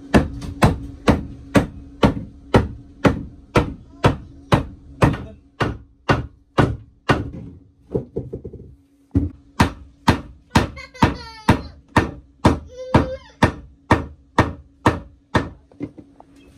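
A hammer striking a wooden block held against a plywood floor panel to drive the panel into place. The blows come steadily at about two a second, with a short pause about halfway through.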